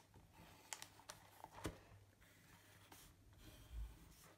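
Faint scratching of a pencil on notebook paper as a straight line is drawn, with a few light ticks, and a soft low thump near the end.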